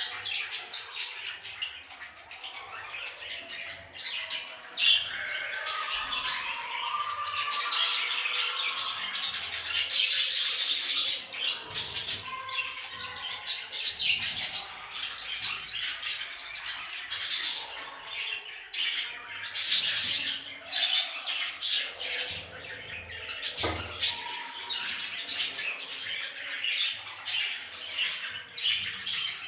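Budgerigars chattering nonstop, a dense mix of warbling, chirps and harsh squawks.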